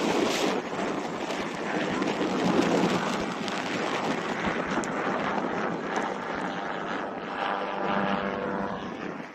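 Wind buffeting the microphone in a steady rush. From about seven to nine seconds in, the faint drone of a distant engine sits underneath it.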